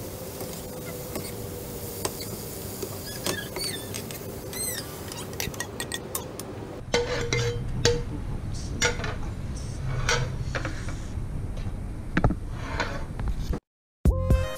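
Metal tongs scraping and clicking in a non-stick frying pan as spinach is stir-fried, with a run of high squeaks about three to five seconds in. From about seven seconds in come louder knocks and clinks of tongs and pan as the spinach is moved onto a ceramic plate.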